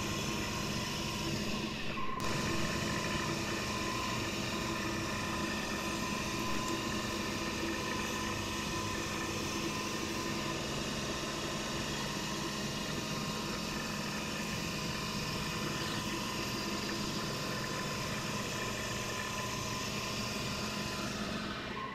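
1998 Shoptask XMTC Gold lathe-mill combo's milling spindle running steadily while drilling the tapping-drill holes in a small bronze casting: a steady hum with several steady whining tones, with a brief dip about two seconds in.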